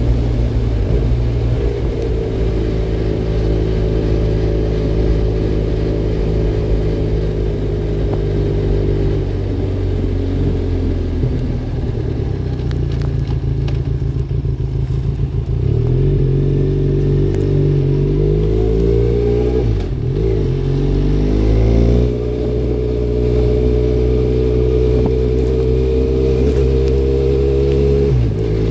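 Benelli Leoncino 500 parallel-twin motorcycle engine running through a MIVV Double Gun aftermarket exhaust, heard from the rider's seat while riding. The revs fall as the bike slows about a third of the way in, then rise and dip again through gear changes before it settles into steady running.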